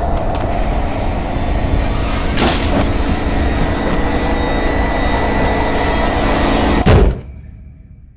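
Horror-film sound design: a dense, rumbling drone with a few steady tones under it and a loud hit just before seven seconds in, after which the sound quickly dies away.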